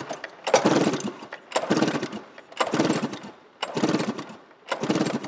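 The 700 two-stroke engine of a 2005 Arctic Cat M7 EFI snowmobile being cranked over by repeated pulls of its recoil starter, one whirring stroke about every second. This is a compression test of the magneto-side cylinder, which comes up to a good 127 psi.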